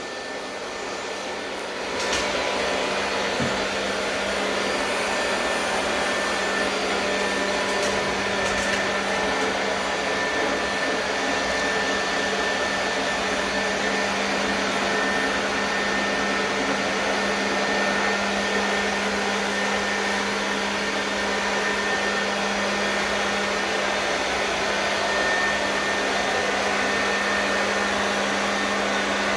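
A motor-driven cleaning machine running steadily, a whirring hum with a rush of air, getting louder about two seconds in and then holding steady.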